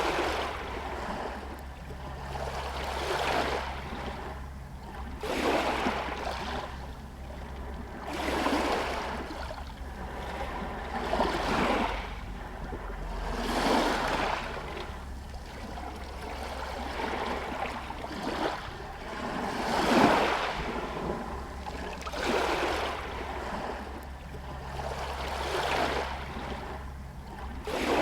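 Small Adriatic Sea waves lapping against stones and a pier, a soft wash of water swelling and falling away every two to three seconds, over a steady low rumble.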